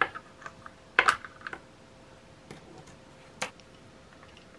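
Hard plastic clicks and knocks as a DeWalt bit case is worked apart with a plastic pry tool to remove its belt clip. A sharp click comes right at the start, a cluster about a second in, and another near three and a half seconds.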